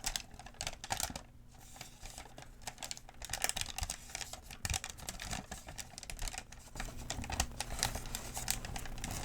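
Close-miked paper medication guide being handled and unfolded: a quick, irregular run of crisp crinkles and taps.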